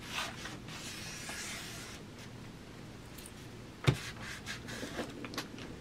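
Hands and a baby wipe rubbing over glued paper, pressing a file-folder pocket flat, with a soft rustling swish. About four seconds in there is a single sharp knock, then a few light taps.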